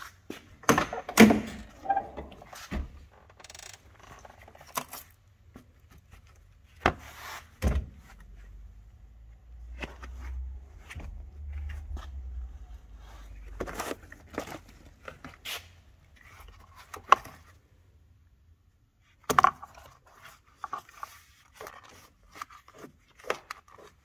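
Scattered clicks, knocks and scrapes of hands and objects being handled inside a car's cabin, with a low rumble in the middle.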